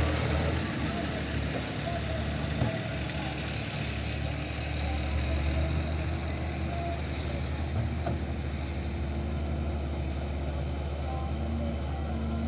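Diesel engines of a John Deere excavator and a farm tractor running steadily together as the excavator works, loading sand into the tractor's trailer.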